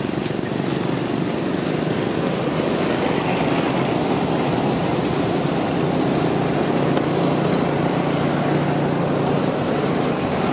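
Steady drone of an engine running, even in level throughout, with a low hum that grows stronger about six seconds in.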